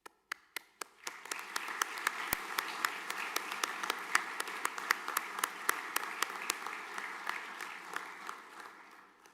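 Audience applauding: a few separate claps at first, quickly swelling into steady clapping that fades away near the end.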